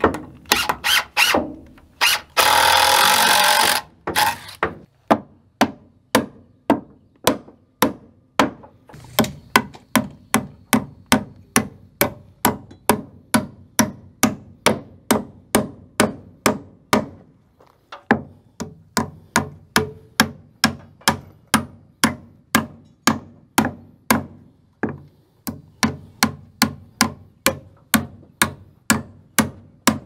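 Hammer blows on wood, about two strikes a second, driving nails into a wooden wall stud, the toe-nailing at the stud's base. A power driver runs loudly for about a second and a half near the start.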